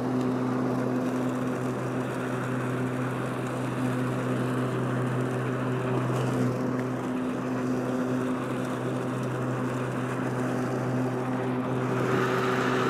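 Powersmart 80-volt cordless self-propelled lawn mower running under cutting load, its electric motors and twin blades giving a steady hum with a low whine. A rushing hiss rises near the end.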